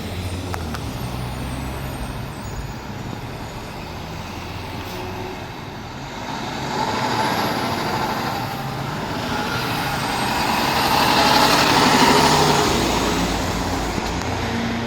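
Heavy truck engine rumbling, then a vehicle driving past: the sound builds to its loudest about twelve seconds in and eases off.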